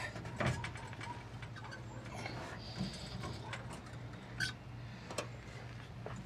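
Irregular light clicks and taps from handling a fuel-line fitting and rubber hose, with a few sharper knocks, over a steady low hum.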